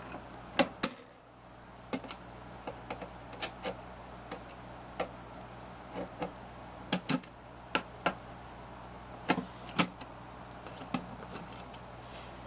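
Screwdriver taking the screws out of a metal instrument cover plate: irregular clicks and metallic taps of the tip on the screw heads and of screws and the plate being handled, over a low steady hum.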